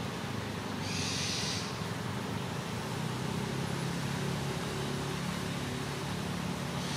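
Steady low rumble with a faint hum underneath, and a short high hiss about a second in.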